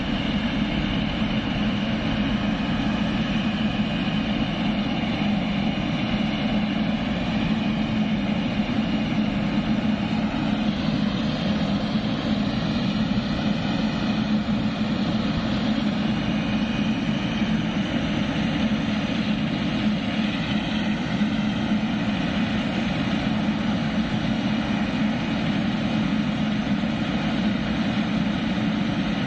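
Jet engines of a Boeing 777-300ER, its GE90 turbofans, running steadily: a constant drone with a whine above it that wavers slightly in pitch midway.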